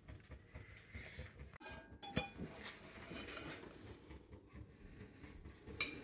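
Cookware and utensils clinking and knocking a few times, metal on metal, with one sharp clink about two seconds in and another near the end.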